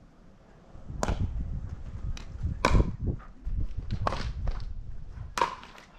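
Pickleball paddles striking the hollow plastic ball in a rally: four sharp pops about a second and a half apart, the loudest near the middle, with fainter ticks between them.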